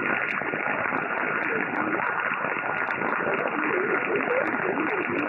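Shortwave receiver audio from an Airspy HF+ Discovery software-defined radio tuned to 8812 kHz upper sideband, with its baseband noise blanker engaged. A steady static hiss, cut off above about 3 kHz, covers a very weak voice broadcast from a Vietnamese coastal radio station that comes through faintly, along with a faint steady whistle.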